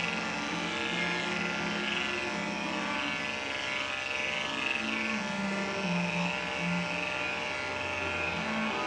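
Andis 5-speed corded electric dog clipper, fitted with an attachment comb, buzzing steadily as it clips through a dog's coat, with background music carrying a slow bass line.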